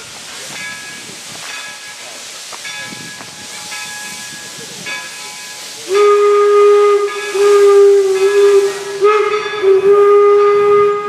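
Steam hissing from a 4-4-0 steam locomotive. About six seconds in, its single-chime steam whistle sounds in a series of long blasts on one steady tone, much louder than the hiss.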